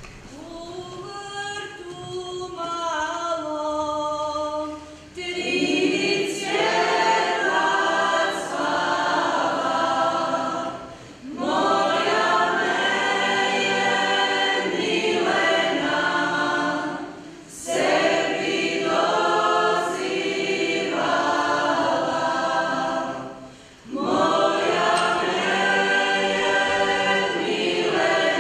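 Unaccompanied folk choir singing a traditional Croatian Moslavina song, as heard in a staged folk wedding. A single voice leads for about the first five seconds, then the whole group comes in together and sings in several parts, in long phrases with short breaths between them.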